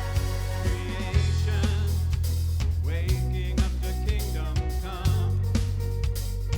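Worship band playing a song: drum kit keeping a steady beat over bass and sustained chords, with a voice singing a melody through the middle.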